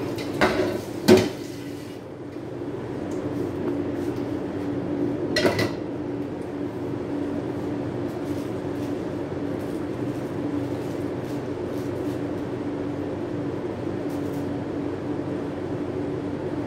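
Kitchenware clattering: a pair of clinks near the start, the louder one about a second in, and another clatter about five and a half seconds in, over a steady low mechanical hum.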